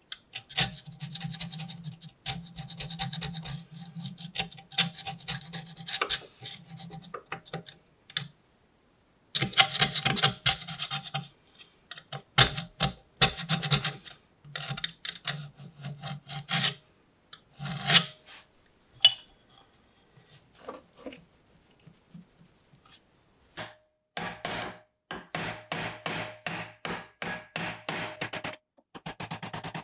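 A pointed metal pick scraping and picking at rust in the seam between a rusted steel lantern's lid and body, in irregular scratchy strokes with short pauses. Near the end the strokes come quicker and more even, about three a second.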